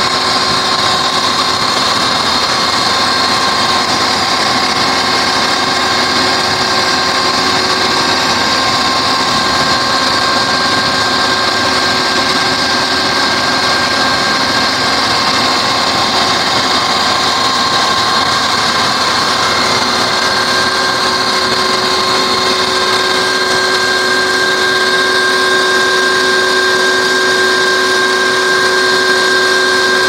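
Full-feed combine harvester running steadily while its unloading auger pours paddy grain out: a loud, even machine drone with several steady whining tones over it.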